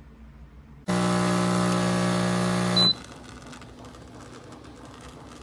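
Espresso machine's vibration pump buzzing loudly for about two seconds, starting and stopping abruptly, with a short high beep just as it cuts off.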